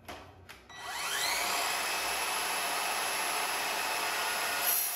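Evolution R185CMS-Li 18 V cordless sliding mitre saw with a multipurpose blade: a click, then the motor winds up with a rising whine and runs steady at full speed. Near the end the sound turns harsher and brighter as the blade starts cutting into 3 mm steel plate.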